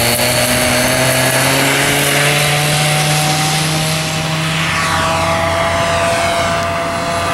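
Engine and propeller of a Big Stick 60 RC model airplane running at full throttle on its takeoff roll and climb-out. The pitch holds steady at first, then falls from about four and a half seconds in as the plane climbs away.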